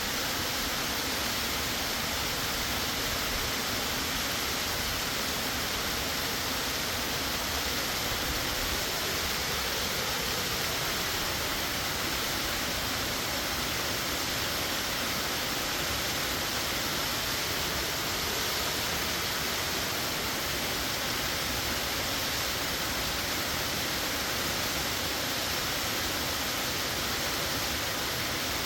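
Waterfall plunging into a narrow rock canyon, a steady, unbroken rush of falling water.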